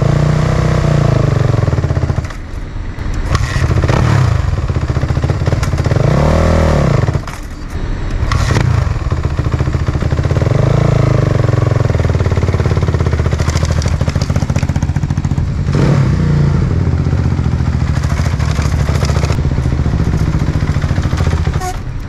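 Suzuki RM-Z450 supermoto's single-cylinder four-stroke engine running through an Akrapovic exhaust, revved up and let fall back several times while the bike stays in place. A few sharp clicks come in between the revs.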